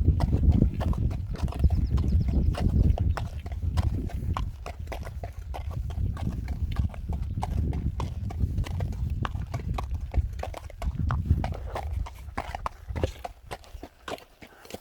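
Footsteps of a person walking with a leashed dog, a steady run of short steps and clicks, over a low rumble that fades out about twelve seconds in.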